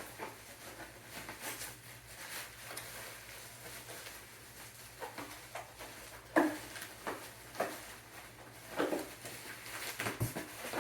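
Plastic packaging rustling and crinkling as tightly wrapped and taped parts are pulled out and unwrapped by hand. There are irregular crackles and short sharp snaps, the loudest about six and a half seconds in, over a faint steady hum.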